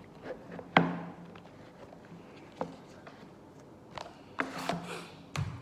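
Handling noises as a watch is taken out of its presentation box: a few sharp clicks and knocks, the loudest about a second in, and a short rustle near the end.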